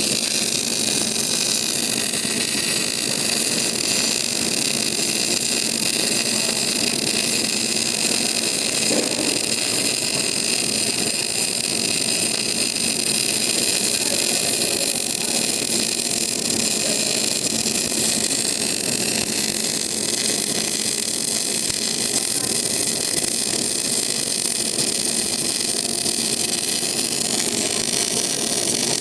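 A steady machine whir with a strong hiss.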